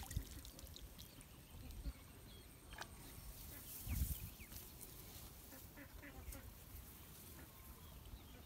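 A small tilapia splashes as it is jerked out of the pond on a bamboo pole line, then low thumps and rustling as the fish is swung in and handled on the line, the loudest thump about four seconds in. Faint short calls in the background.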